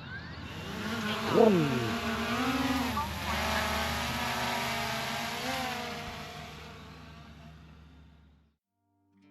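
Quadcopter drone taking off, its propeller motors whining and wavering in pitch as it lifts and manoeuvres, with one quick dip in pitch about a second and a half in; the whine fades away as the drone climbs off.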